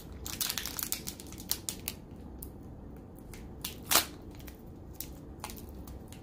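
Crinkling and rustling of a foil Pokémon booster pack wrapper and trading cards being handled, in a run of crackly clicks during the first second, then scattered, with one sharp snap about four seconds in.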